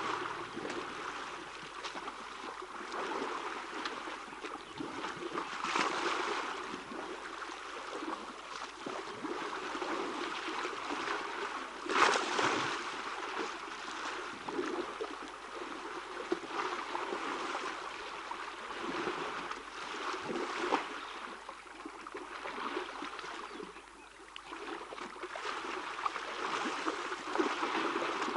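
Water splashing and sloshing as young African elephants wallow and wrestle in a shallow waterhole, in irregular surges with a sharper splash about twelve seconds in.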